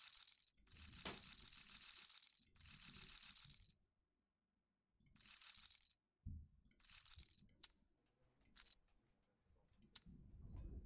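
Near silence, with faint short clinks and clicks of casino chips being placed on an online roulette table, in several brief clusters.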